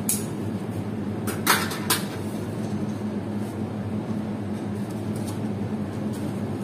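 Steady low mechanical hum with a few sharp clicks and knocks near the start and about a second and a half in, from a vendor cutting and portioning rotisserie chicken onto plates.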